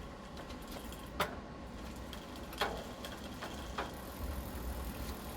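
Bicycle rear wheel and chain drivetrain spinning freshly refitted, with a steady low rumble and a few sharp clicks about a second and a half apart; it runs smoothly.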